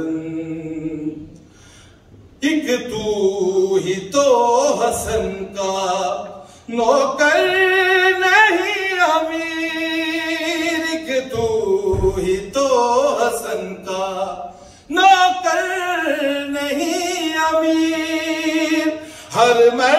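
A man chanting Urdu devotional poetry into a microphone in long, melodic, wavering phrases. There is a brief pause about two seconds in.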